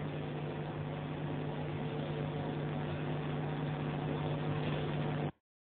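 Steady background hiss with a low steady hum, with no distinct stirring clicks, cutting off suddenly to silence near the end.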